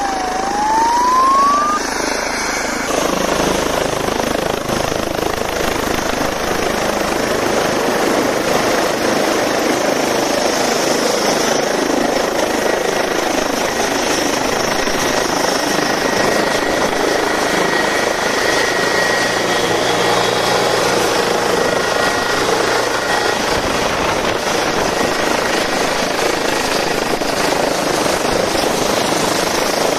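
Ambulance helicopter running on the ground, its engine and rotor making a steady loud noise. In the first two seconds a short tone dips and rises once.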